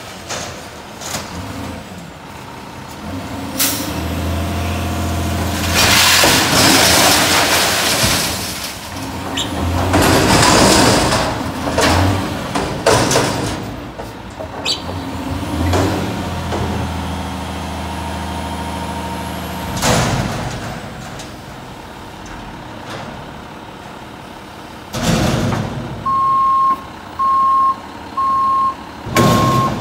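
Front-loader garbage truck's engine revving to drive the hydraulic forks as they lift a dumpster over the cab, with two long loud crashing surges as the garbage pours into the hopper and sharp knocks as the bin is shaken out. The arms then lower the bin, air brakes hiss twice, and near the end a reversing alarm beeps steadily as the truck backs up.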